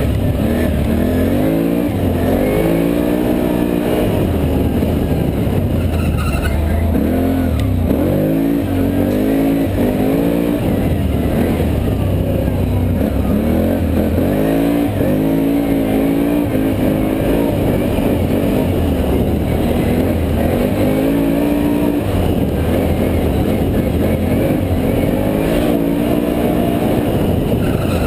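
Can-Am Renegade ATV engine under way, revving up and down as the throttle is opened and eased off, its pitch climbing again and again.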